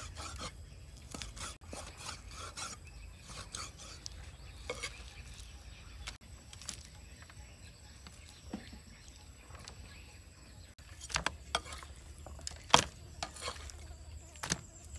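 Raw pork leg pieces being rubbed, scraped and dropped into a plastic basket, with scattered soft knocks. A few knocks come close together near the end, and the loudest comes as a handful of meat lands in the basket.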